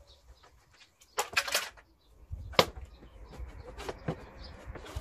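Hand work on a BMW N52 engine bay: the plastic engine cover and tools being handled, giving a quick cluster of plastic clicks about a second in and sharp single knocks later, over a low rumble.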